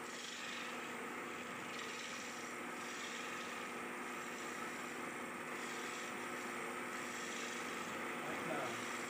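Wood lathe running with a steady motor hum while a hand-held turning tool scrapes along the spinning wooden cot leg, the cutting noise coming and going as the tool moves.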